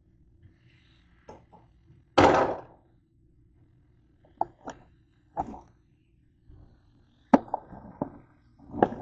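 Irregular knocks and thuds of things being handled on a kitchen counter and plastic cutting board: one loud, short scraping thud about two seconds in, a few single knocks after it, and a quick cluster of sharp knocks near the end.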